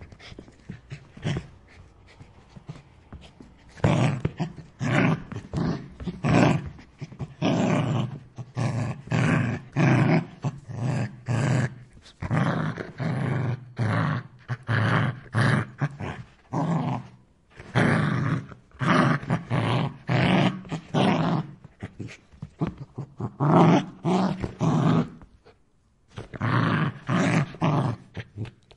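A dog growling in rough, repeated bursts about half a second each, in runs broken by short pauses.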